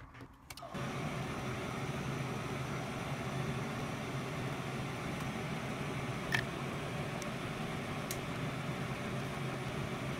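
Fume extractor fan running steadily with a low motor hum, switched on abruptly under a second in. One short tick about six seconds in.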